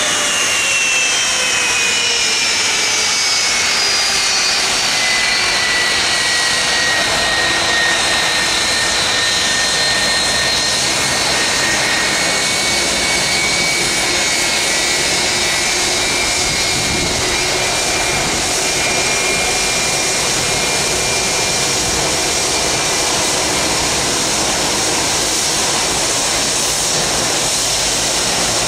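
American Airlines Boeing 757's twin turbofan engines running at taxi power as the jet rolls slowly past. The high engine whine falls in pitch over the first ten seconds or so, then holds steady under an even rush.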